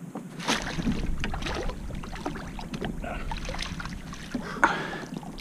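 Jack crevalle thrashing in a landing net at the water's surface: a run of splashes, with a sharper splash near the end and wind rumbling on the microphone.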